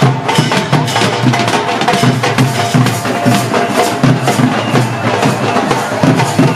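Festive music with fast drumming and wood-block-like clacks keeping a steady beat under a sustained melody.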